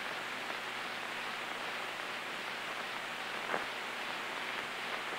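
Steady hiss of an old film soundtrack's background noise, with one faint click about three and a half seconds in.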